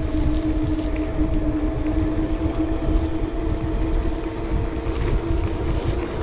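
Wind buffeting the microphone of a personal electric vehicle riding down a road. The wind rumble is loudest. Over it runs a steady electric motor whine with a few overtones.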